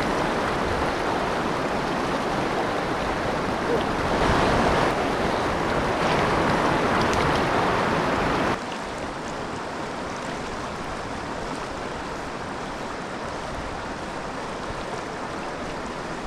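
Steady rush of a mountain creek's flowing water. About eight and a half seconds in it drops suddenly to a quieter, duller rush.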